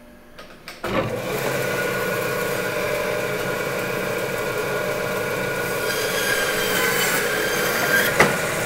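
Meat band saw starting up about a second in and running steadily as its blade cuts through a large section of beef round.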